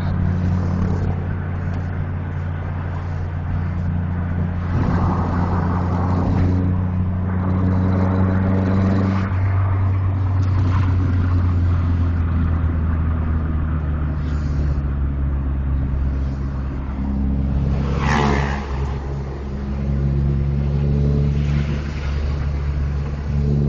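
Vehicle engine running steadily on the road, a deep drone with a steady pitch, with a brief sound sweeping up and down in pitch about eighteen seconds in.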